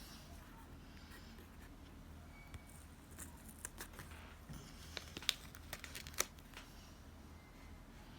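Faint paper handling while decorating a journal page: crinkling and rustling of paper, with a few sharp clicks, the loudest about five and six seconds in.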